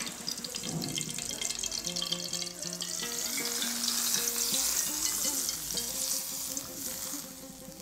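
Hot oil with fried onions poured from a small pan onto rice in a large pot, sizzling as it hits the rice. The sizzle swells about three seconds in and fades near the end. This is the stage of a pulao where the oil goes over the rice before it is left to steam.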